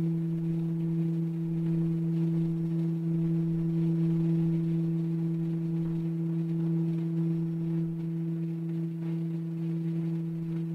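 A steady low electrical hum made of two held tones, unchanging throughout.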